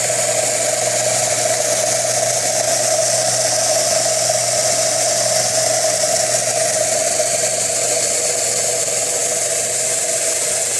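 Homemade belt sander, driven by an old bandsaw's electric motor, running steadily: a constant motor hum and whir with a clear steady tone. The belt is slightly loose but stays on the wheels.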